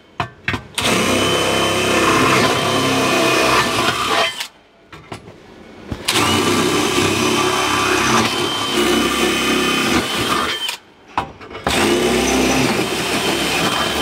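Cordless drill boring holes up through a van's floor and the rear bed plate from underneath, its motor whining steadily. It runs three times, stopping briefly about four and a half seconds in and again about eleven seconds in.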